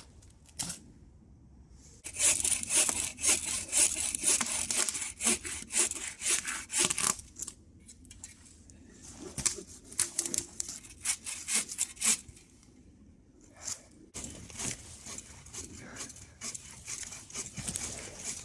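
A hand saw cutting through wood in quick back-and-forth strokes, in three bouts, the first the loudest and the last fainter.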